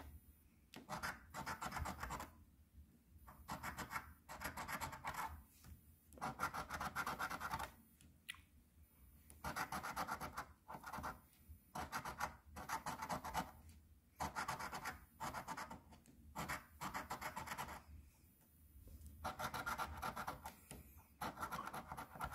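A coin scraping the coating off a paper scratch-off lottery ticket. It comes in repeated rasping bursts of about a second each, with short pauses between them.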